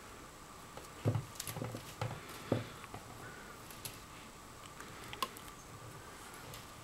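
Hands working plastic lanyard (scoubidou) strings, tying a loop: a cluster of soft taps, clicks and rustles about a second in, then a few faint clicks, over a faint steady hum.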